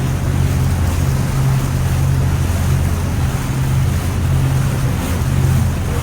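A ship's engine hum running steadily and low, under the rushing noise of wind and sea.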